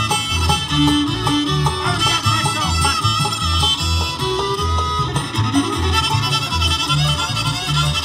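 Live country-bluegrass band playing an instrumental break, the fiddle taking the lead over strummed guitar and a steady bass beat.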